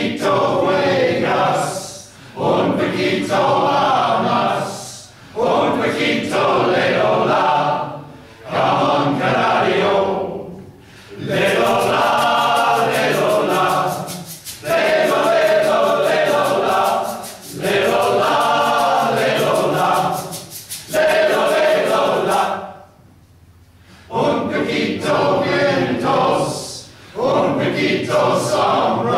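Men's choir singing in short phrases of a few seconds each, with brief breaths between them and a longer pause about 23 seconds in.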